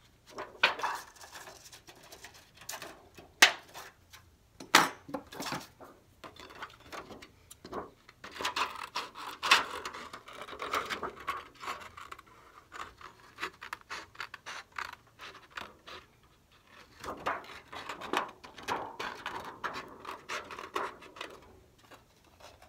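A few sharp clacks from a hand-held hole punch and its handling early on, then scissors snipping and scraping through thin Shrinky Dink shrink-plastic sheet in two runs of cuts with a quieter pause between.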